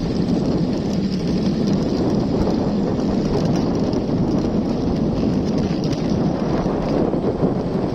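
Wind buffeting a phone's microphone: a steady, loud, low rushing noise that never lets up.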